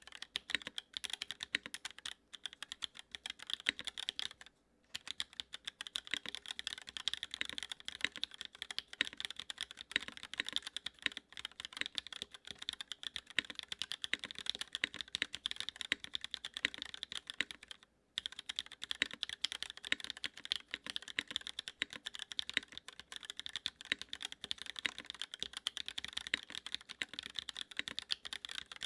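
Fast continuous typing on a Duck Orion V3 mechanical keyboard with linear Cherry MX Black switches in an aluminium plate with no foam, a rapid stream of key clacks. It pauses briefly twice, a little over 4 seconds in and about 18 seconds in.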